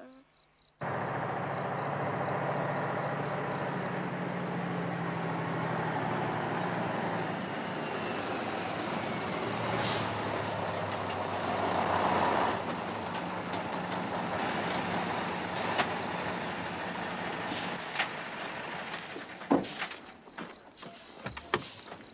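Heavy semi-truck driving by with engine and road noise that sets in suddenly about a second in, is loudest around the middle, and drops away after about twenty seconds, leaving a few sharp knocks. Crickets chirp in an even high pulse throughout.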